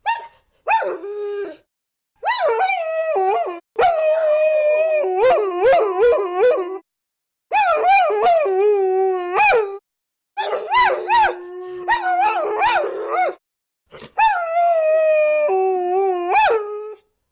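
Several dogs howling together in overlapping bouts. Some voices hold a steady pitch while others waver up and down, with short breaks of silence between bouts.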